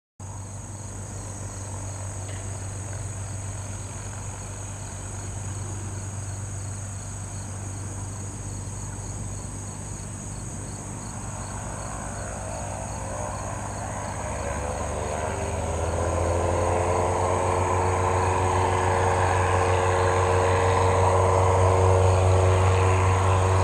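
Cessna 177RG Cardinal's four-cylinder piston engine and propeller at take-off power during the take-off roll, a steady drone that grows steadily louder over the second half as the plane rolls closer. Crickets trill steadily throughout.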